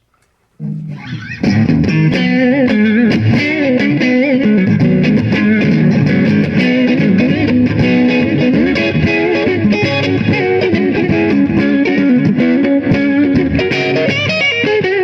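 Electric guitar, a Les Paul, played through a Donner Boost Killer boost pedal with its volume at 10 into a Blackstar HT-40 amp: a boosted, crunchy tone with busy playing of many notes. A few notes come in about half a second in, and the playing turns loud and continuous a second later.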